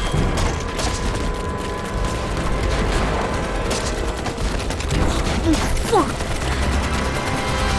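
Battle gunfire: a dense, irregular fusillade of rifle and machine-gun shots over a steady low rumble.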